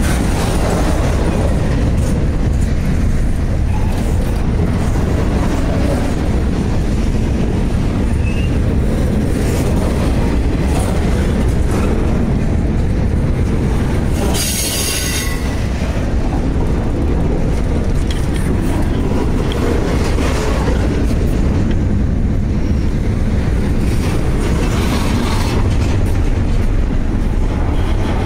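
BNSF intermodal freight train's double-stack well cars rolling past: a loud, steady rumble of steel wheels on rail, with a brief high-pitched squeal about halfway through.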